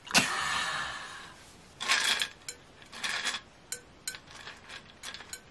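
Stainless-steel cocktail shaker shaken close to the microphone, rattling: one longer shake at the start, then two short shakes about a second apart, with light metallic taps and clicks in between.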